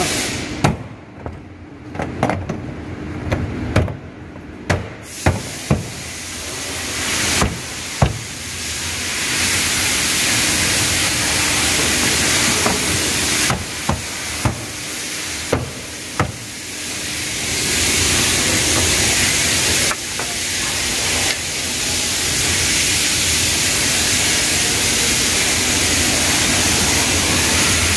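Plastic trunk trim panel being handled and pushed into place: a series of sharp clicks and knocks over the first several seconds. A steady loud hiss then takes over about eight seconds in and continues, with a few more knocks around the middle.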